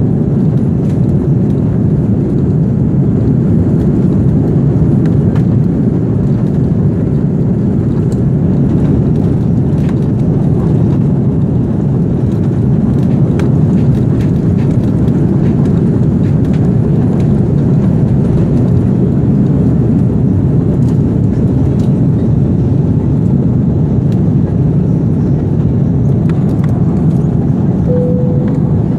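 Cabin noise of an Airbus A330 on its takeoff roll and liftoff: the engines at takeoff thrust make a loud, steady rumble, with faint scattered clicks and rattles.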